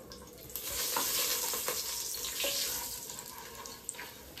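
Ground spices and cumin seeds sizzling in hot mustard oil in a pressure cooker, stirred with a spatula. The sizzle swells about half a second in and dies down near the end.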